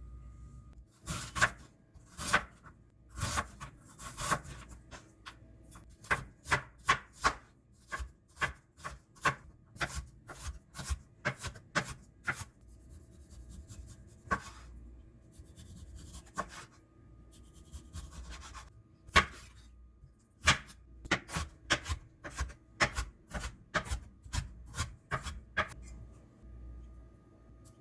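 Kitchen knife chopping on a cutting board: sharp strokes in runs of about two a second, broken by pauses, with one stroke near the middle louder than the rest.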